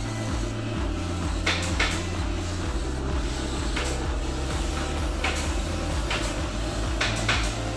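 Short hissing bursts of a compressed-air spray gun spraying finish, a few times at uneven intervals, over background music with a stepping bass line.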